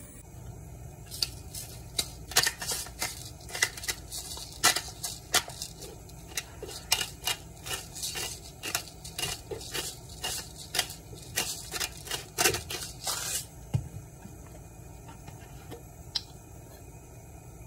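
Hand-twisted spice grinder grinding over a soup pot: a rapid, irregular run of crunchy clicks for about twelve seconds that stops near the end. A steady low hum sits underneath throughout.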